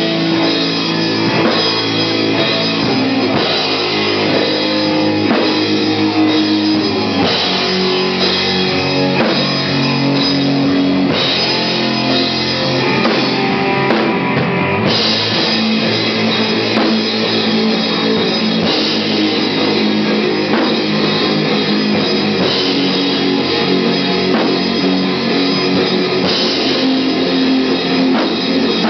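Stoner rock band playing live and loud, with electric guitars and a drum kit. The sound grows brighter about halfway through.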